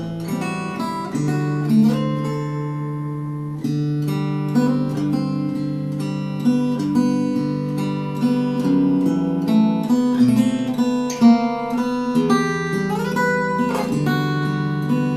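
K.Yairi MYT-1 compact acoustic guitar (solid cedar top, mahogany back and sides) played fingerstyle: a picked melody over ringing bass notes, with one note gliding up in pitch near the end.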